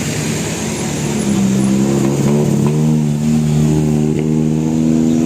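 A bus passing close with its engine revving. A steady pitched drone builds about a second in and holds, stepping in pitch a couple of times.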